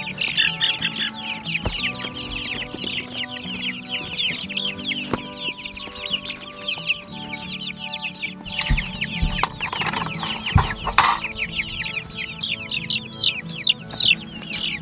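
A flock of nearly three-week-old chicks peeping nonstop, a dense stream of quick falling chirps, over faint background music. A burst of rustling with a couple of knocks comes around the middle.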